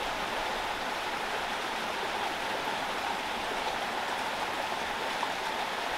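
Steady rush of water flowing from a spring, an even hiss with no breaks.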